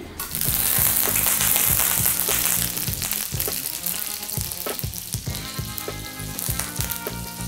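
Cubes of butter sizzling as they melt on a large hot tawa griddle, loudest in the first few seconds and then easing to a gentler sizzle.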